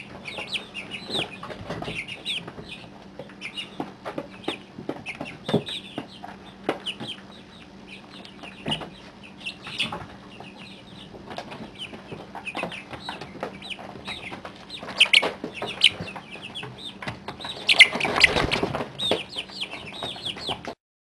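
A brooder flock of month-old chicks peeping and cheeping nonstop in short, high calls, with scattered taps and scratches. A louder rustling flurry comes near the end.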